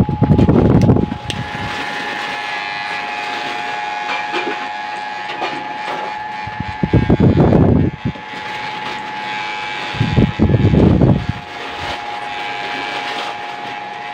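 Electric hair clipper fitted with a number 1 guide comb, running with a steady hum, with three louder, noisier bursts: at the start, about seven seconds in and about ten seconds in.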